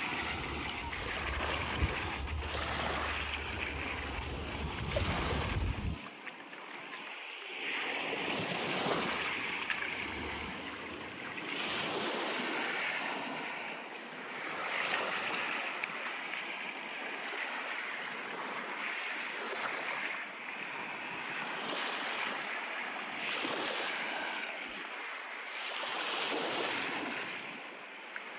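Small sea waves breaking and washing up a sandy beach, the wash swelling and fading every two to three seconds. A low rumble runs under it for the first six seconds, then stops.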